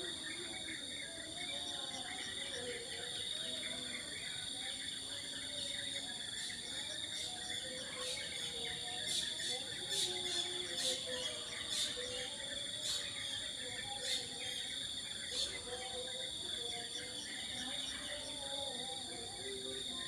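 Morning chorus of birds calling over a steady high-pitched drone of insects, with a run of short sharp chirps in the middle.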